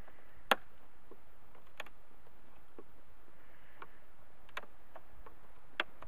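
A metal hive tool clicking and knocking against a wooden bee hive box, a handful of sharp, scattered clicks with the loudest about half a second in.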